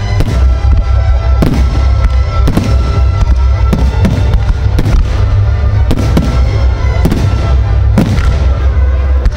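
Aerial fireworks shells bursting, about a dozen sharp bangs at uneven intervals, over loud music with a heavy bass.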